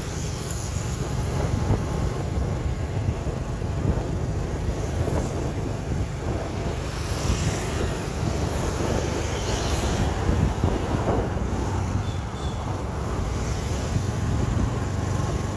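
Wind buffeting the microphone over a steady low rumble of street traffic, recorded while moving along a busy city street.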